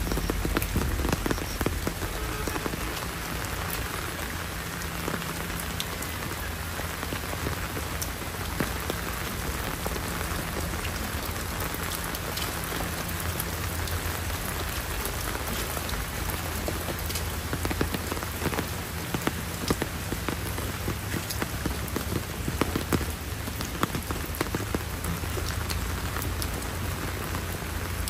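Heavy rain falling steadily, a dense patter of many sharp drop ticks over a steady low rumble.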